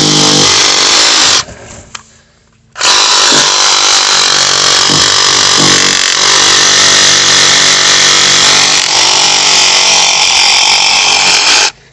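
Hart 20-volt cordless reciprocating saw cutting through sapling stems with a blade the owner thinks may be a little dull. It runs briefly, stops for over a second, then runs steadily for about nine seconds and stops just before the end.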